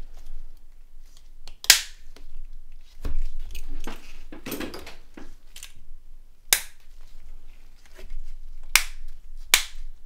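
Small plastic phone casing parts being pressed and snapped into place, with four sharp clicks. There is a rustling scrape of handling in the middle.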